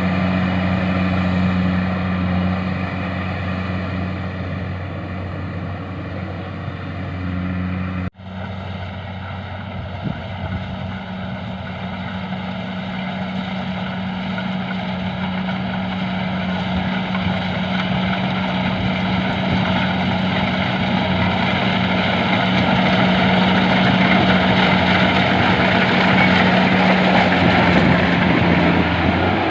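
Engine of a rice harvesting machine running steadily with a low, even hum and a mechanical rush. It cuts out for an instant about eight seconds in, and the rushing noise grows slowly louder toward the end.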